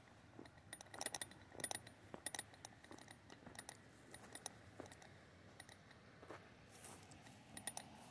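Loose camera lens rattling, metal on metal, in faint irregular tinkly ticks.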